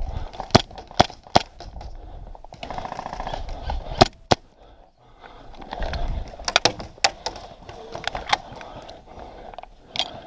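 Airsoft guns firing scattered single shots during a skirmish: sharp, irregular cracks and clacks, sometimes two in quick succession.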